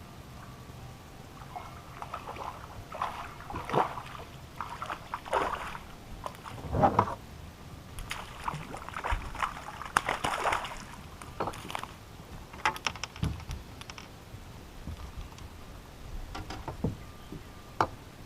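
Irregular knocks and clicks mixed with short splashing, sloshing sounds, scattered through with brief gaps; the loudest come about seven and ten seconds in.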